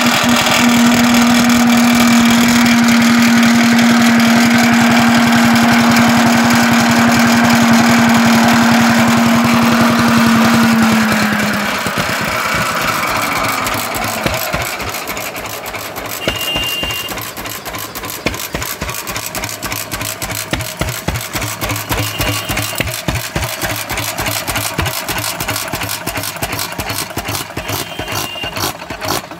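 Vintage stationary engines running. A loud steady hum drops slightly in pitch and stops about twelve seconds in. After that a single-cylinder hopper-cooled engine keeps running with a quick, even beat of firing strokes.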